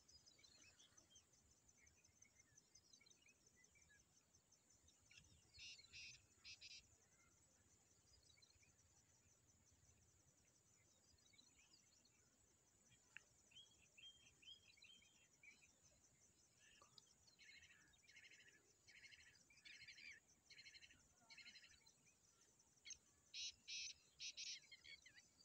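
Black francolins calling: several short series of three or four harsh, loud notes, the loudest about six seconds in and again near the end, with a longer run of calls in between. A steady high insect trill runs underneath.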